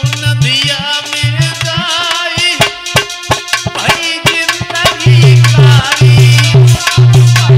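Instrumental passage of a Hindi Holi folk song: drums and a wavering melody line, with a heavy, evenly repeating bass beat coming in about five seconds in.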